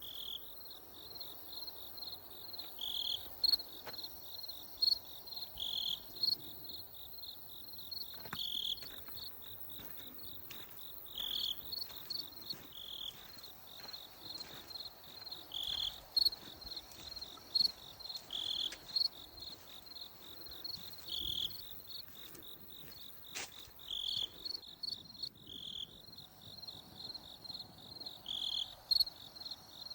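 Crickets chirping: a fast, even pulsing trill with a louder chirp about every two to three seconds.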